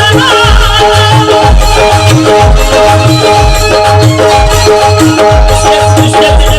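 Instrumental interlude of a qawwali-style devotional song: held melody notes over a steady, repeating low drum beat, with rattling percussion on top.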